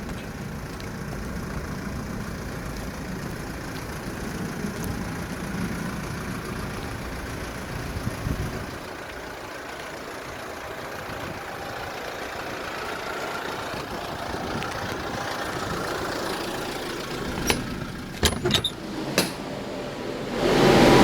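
Kia Bongo refrigerator truck's engine idling steadily, its sound changing about eight seconds in; a few sharp clicks near the end.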